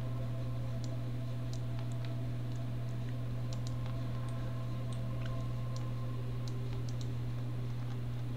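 Scattered light computer mouse and keyboard clicks, a dozen or so spread unevenly, over a steady low hum.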